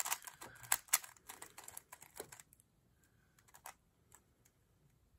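DaYan TengYun V2 M magnetic 3x3 speed cube being turned quickly in the hands: a fast run of clicky plastic layer turns for about two and a half seconds, then only a few scattered clicks.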